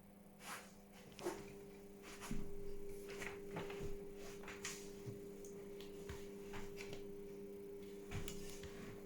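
Scattered small clicks and knocks of handling at a desk, over a steady electrical hum; a second, higher hum tone comes in about a second in.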